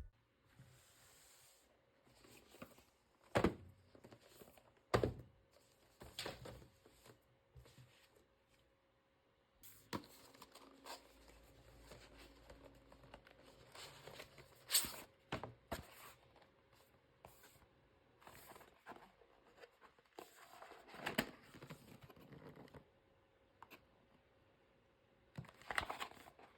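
Faint handling noise: plastic packaging crinkling and tearing, with scattered light knocks at irregular intervals.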